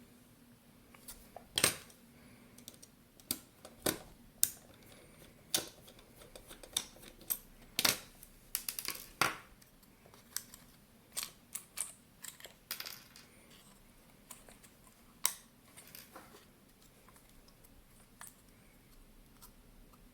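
Irregular small clicks and taps of the plastic and metal parts of a Vivitar T027 digital camera being handled and worked apart, with a few louder knocks; the clicks thin out near the end.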